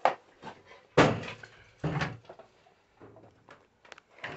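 A wooden aviary door and fittings knocking and banging several times, the loudest bang about a second in, with a duller thud just before two seconds and a smaller knock near the end.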